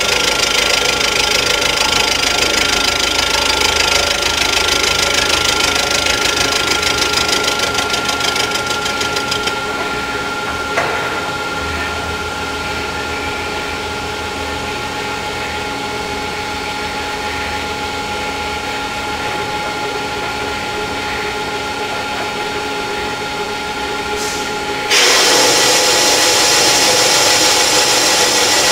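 Rottler F90Y CNC mill's end mill cutting the engine block deck around a water hole: loud, steady, hissy cutting noise over a steady spindle whine. About ten seconds in the cutting stops and only the machine's whine and hum go on. Near the end a new cut starts suddenly and loudly.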